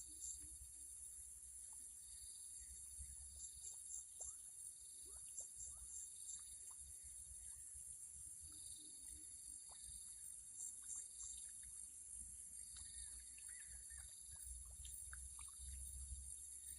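Faint insect chorus: a steady high shrilling with a lower chirring that swells and fades every second or two, over a low rumble and a few small ticks.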